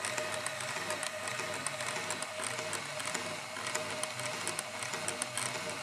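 IKEA SY sewing machine, stripped to its bare frame, running: a steady motor whine over the mechanism's rhythmic clatter and light ticking.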